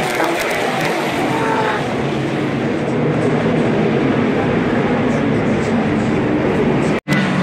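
Race car engines running on the track, with a falling engine note in the first couple of seconds as a car pulls away. The sound cuts out abruptly near the end.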